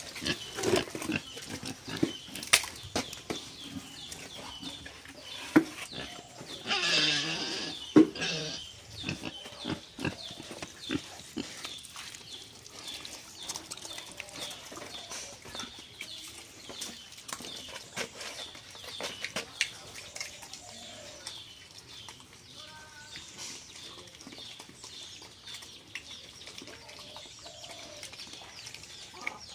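Pigs in a pen grunting and moving about. Sharp knocks come often in the first ten seconds or so, and a louder noisy burst lasting about a second and a half comes about seven seconds in; after that the sounds are quieter.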